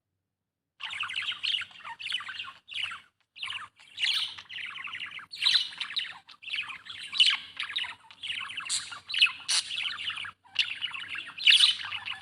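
Budgerigar chirping and warbling in a fast, continuous chatter of short notes and squawky chirps, with only brief pauses. It starts about a second in after dead silence.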